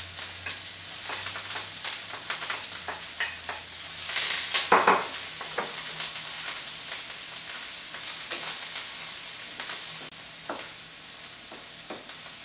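Small canned sausages, onion and sweet peppers sizzling in oil in a non-stick frying pan as they are lightly sautéed before the eggs go in. A wooden spatula scrapes and taps the pan as it stirs them, with a louder clatter about five seconds in.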